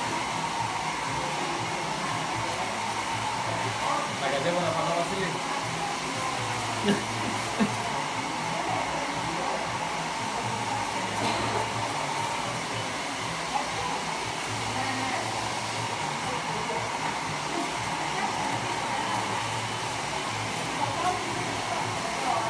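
Hair dryer running steadily, a continuous blowing hiss, with two short clicks about seven seconds in.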